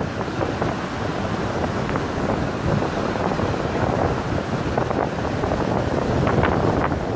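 Wind buffeting the microphone over surf breaking and washing up a pebble beach, the wash hissing louder near the end as a wave runs up the stones.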